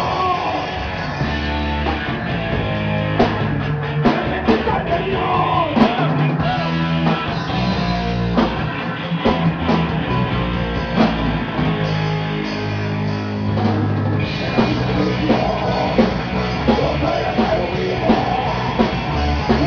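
Rock band music with drum kit, guitar and a singing voice over a steady bass line.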